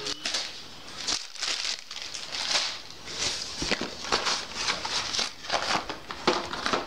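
Plastic wrapping on firecracker packets crinkling and cardboard boxes rustling as hands rummage through a carton, in irregular bursts.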